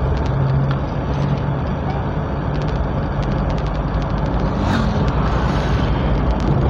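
Engine and road noise inside a moving vehicle's cabin: a steady low drone with a hiss of road and wind noise, and light rattling clicks now and then.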